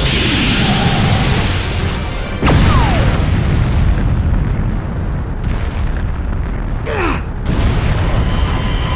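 Anime battle soundtrack: deep booms and explosion rumble over dramatic music, with a sudden blast about two and a half seconds in and a falling whoosh near the end.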